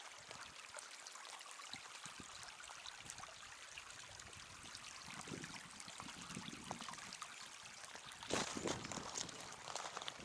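A creek's running water trickling steadily, with a few louder footsteps crunching about eight seconds in.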